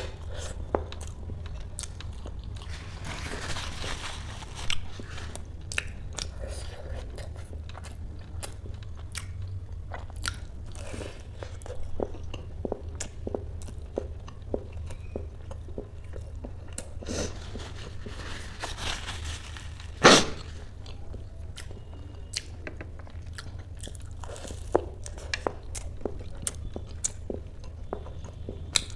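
Close-miked biting and chewing of a crisp deep-fried kachori, a run of irregular crunches and mouth clicks, with one much louder crunch about two-thirds of the way through.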